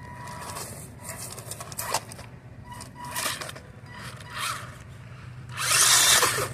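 RC crawler truck working over a cement block: short, intermittent scraping of its tyres and chassis against the concrete, with a faint motor whine. A longer, louder burst of scraping comes near the end.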